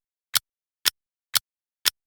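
Clock-style ticking from a countdown timer: sharp, even ticks, two a second, with silence in between.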